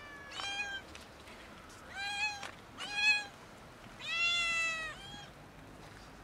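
Stray cat meowing repeatedly, about five meows, one of them longer and lower about four seconds in: hungry cats asking for food.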